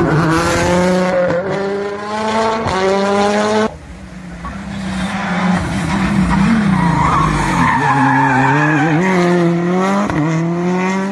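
Two rally car engines in turn, each accelerating hard out of a hairpin, the revs climbing and dropping through quick upshifts. The first car's engine cuts off abruptly a little under four seconds in. A second car then comes up and accelerates away, shifting up twice near the end.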